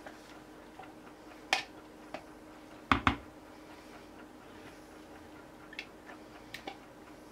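Scattered light clicks and taps of a utensil and a pouring cup knocking against the rim of a jug while thick soap batter is scraped out. A sharp double knock about three seconds in is the loudest.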